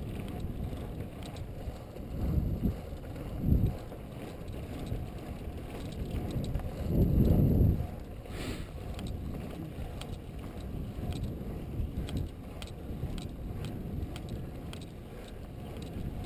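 Wind rushing over the microphone of a bicycle coasting fast downhill on asphalt: a steady low rumble with louder gusts about two and a half, three and a half and seven seconds in, and scattered faint clicks.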